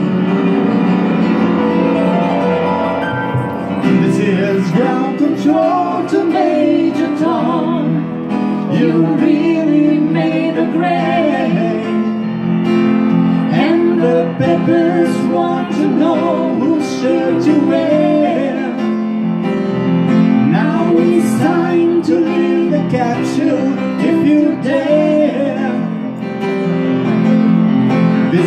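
Live singing with instrumental accompaniment, a man's voice leading over steady sustained chords.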